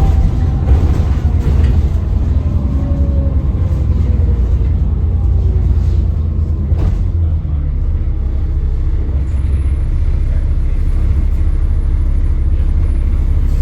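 Alexander Dennis Enviro 400 double-decker bus running with a deep, steady rumble and a faint whine that slowly falls in pitch over the first few seconds, the turbo whine the bus is known for; a single knock sounds about seven seconds in.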